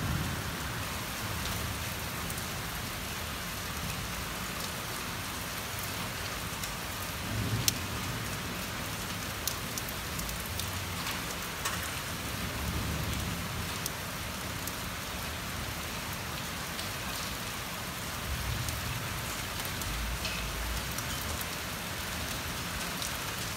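Steady heavy rain falling, with the first small hailstones mixed in, ticking sharply now and then.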